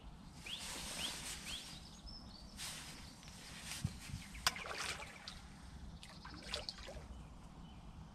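Hooked common carp splashing at the surface while being played on a pole, in several short bursts of splashing with a couple of sharp knocks near the middle. Birds chirp briefly early on.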